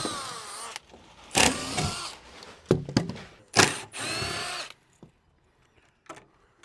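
A cordless power drill run in short bursts about four times, each lasting up to about a second, its motor pitch sliding up and down as it starts and loads.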